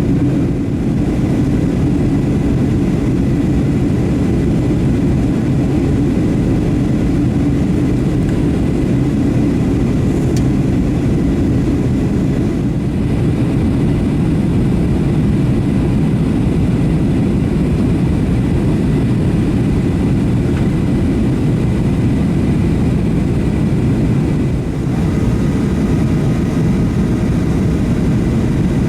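Steady cabin rumble of a Boeing 737-700 airliner in flight during its descent, the CFM56 jet engines and airflow heard from inside the cabin. A few faint steady tones join the rumble near the end.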